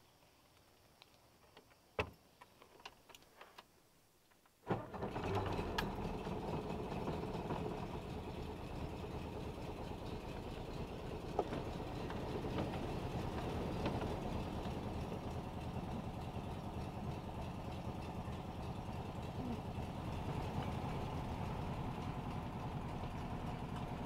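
A VW Beetle's air-cooled flat-four engine starts abruptly about four and a half seconds in and then idles steadily. A few clicks and knocks come just before it.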